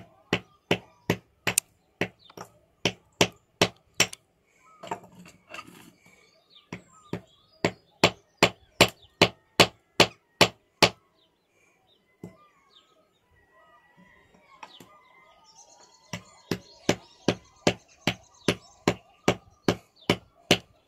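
Steel hammer striking a stone nodule again and again to split it open for the fossil inside. The sharp blows come about two or three a second in three runs, with a pause of a few seconds between runs.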